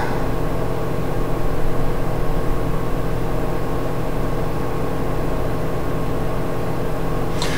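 Steady droning hum with several held tones, unchanging and without breaks.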